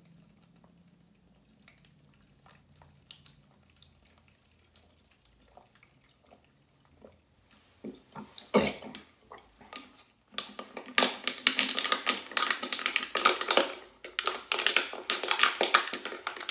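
Faint gulping as a can of beer is chugged. About eight seconds in come a few knocks, then a loud, rapid crackling of a thin aluminium beer can being crunched and bitten with the teeth, with a short break about three seconds later.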